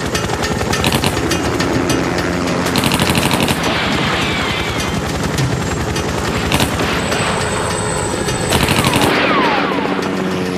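Bursts of automatic gunfire from a submachine gun fired out of a helicopter, about three bursts, near 3, 6.5 and 9 seconds in. Underneath runs the steady chop and whine of the helicopters' rotors and engines.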